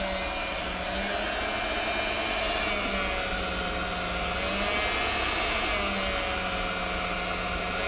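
Electric smokehouse's blower running with a steady whir, under a constant hum and a higher tone that drifts slightly in pitch.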